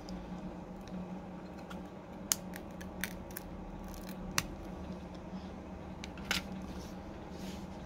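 A few small sharp clicks and taps of a pry tool and tweezers against a phone's glass back cover as a camera-mic flex cable is pried free, over a steady low hum.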